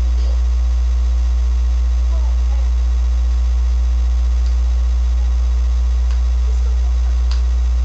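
A loud, steady low electrical hum, of the mains or ground-loop kind, drowns the recording, with faint voices barely showing through.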